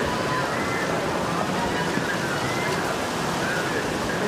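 Whitewater rapids of an artificial slalom course rushing steadily, an even wash of churning water.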